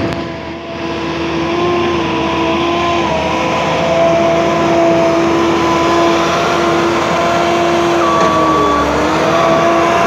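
Bobcat skid-steer loader's diesel engine and drive running at a steady whining pitch as it drives over fresh asphalt, growing louder over the first few seconds; the pitch dips briefly near the end and comes back up.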